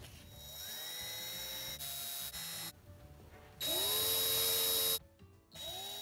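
Cordless drill-driver running in three short bursts, each a whine that rises in pitch as the motor spins up and then holds steady; the middle one, about four seconds in, is the loudest. It is driving screws at a capacitor on an electric motor.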